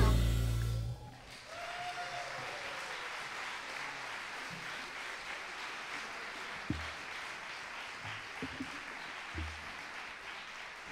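A string swing band's last note dies away about a second in, then the audience applauds steadily.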